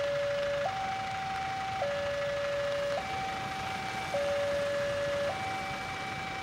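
Railway level crossing warning alarm sounding as a train approaches: an electronic two-tone signal switching steadily between a lower and a higher tone about once a second.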